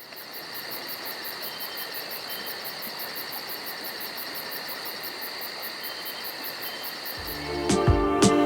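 Insects chirping steadily in a high, rapid pulse of about five beats a second, over an even natural background hiss. About seven seconds in, background music with bass and drum hits starts.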